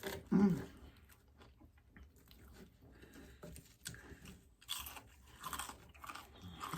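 A person biting into and chewing crispy breakfast food, bacon and hash browns, with irregular crunches, the loudest of them about five to six and a half seconds in.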